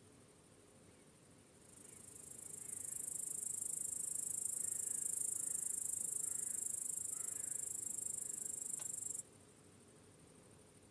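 Crickets chirping in a dense, high-pitched chorus. It swells in about two seconds in, holds steady, then cuts off suddenly near the end, leaving faint room hiss. Faint bird chirps sound underneath.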